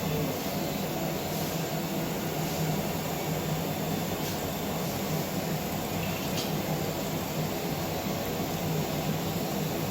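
Steady hum and hiss of running laboratory equipment and room ventilation, with a few faint clicks.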